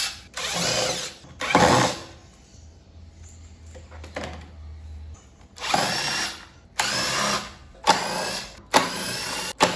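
Cordless drill-driver backing out the screws of a lawnmower's plastic top cover, in short runs of motor whine. Two runs come near the start; after a quieter gap, four more follow in quick succession from about six seconds in.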